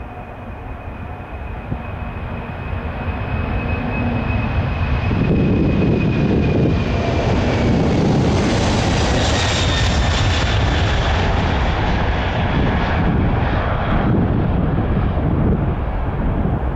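Boeing 747-400's four jet engines at takeoff thrust as it rolls past and lifts off. The sound grows louder over the first five seconds, with a high whine sliding slightly down, then settles into a loud, steady rumble.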